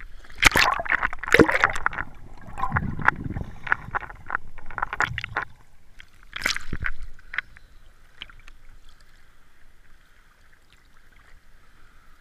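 Lake water splashing and sloshing against a camera at the water's surface, with sharp splashes and knocks for the first several seconds, then settling to a faint steady wash.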